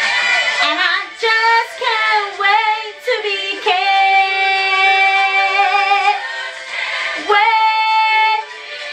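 A woman singing a melodic song in short phrases, then holding a long note from about four to six seconds in.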